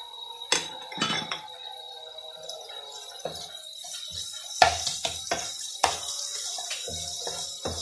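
Wooden spatula knocking and scraping against a non-stick frying pan as crumbled egg is stirred, over a steady sizzle of hot oil. The knocks are sparse at first and come thick and irregular from about halfway.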